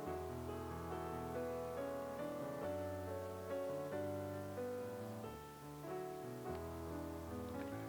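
Background music: a soft piano melody with steady held notes.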